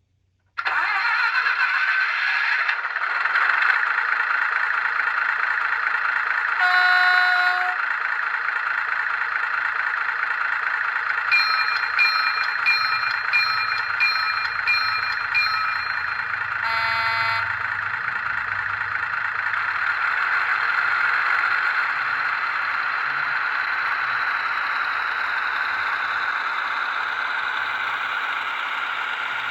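Digital sound decoder in a model diesel railbus playing its engine sound through the model's small speaker. The sound starts abruptly and then runs steadily. A horn sounds about seven seconds in, a quick run of short horn toots follows from about eleven to sixteen seconds, and another horn blast comes just after.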